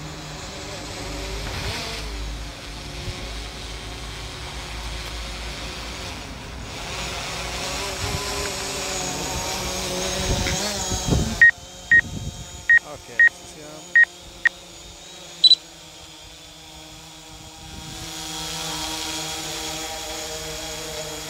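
DJI Mavic Pro drone's propellers buzzing with wind on the microphone as it descends to land, growing louder and rising in pitch until about halfway through, when the noise suddenly drops away. Then six short high beeps in pairs, followed by one higher double beep.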